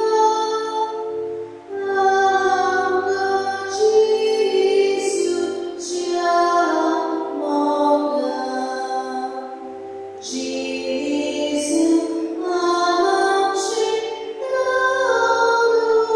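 A woman's voice singing a slow church hymn in long phrases over steady, held accompaniment notes.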